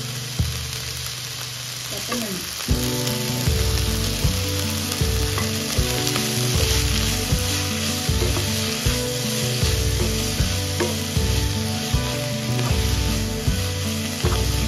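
Mint leaves and sliced onions sizzling in a nonstick pan as they are stirred with a wooden spatula, which taps against the pan every second or so.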